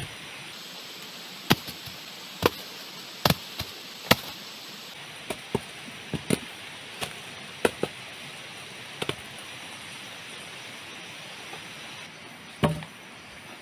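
Blade chopping wood in sharp single blows: four heavy chops about a second apart, then a run of lighter cuts, and one more heavy chop near the end, over a steady hiss.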